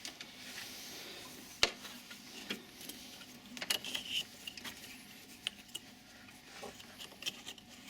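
Scattered light clicks and small rattles of hands working in a car's engine bay, connecting the radiator fan's electrical plug, with one sharp click about one and a half seconds in.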